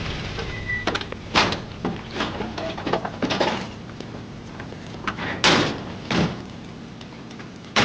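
Doors opening and shutting: a run of small clicks and knocks, then two louder slams about a second apart, and another sharp slam at the end.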